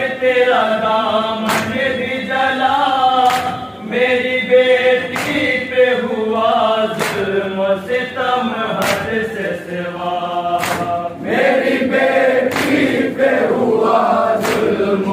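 A group of men chanting an Urdu noha (mourning lament) led over a microphone, with sharp unison strokes of matam chest-beating about every two seconds, coming faster near the end.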